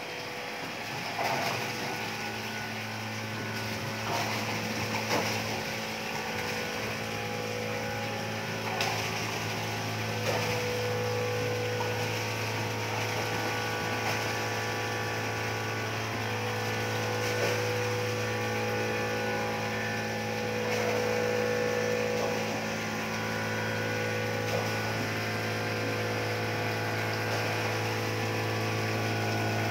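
Steady machine hum from wastewater treatment plant equipment running, a low drone with higher tones shifting above it, starting about two seconds in. A few short knocks now and then.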